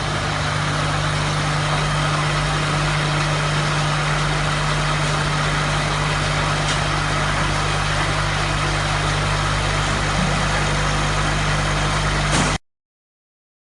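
Oil palm fruit thresher machine running steadily: a constant mechanical drone with a steady low hum. The sound cuts off abruptly near the end.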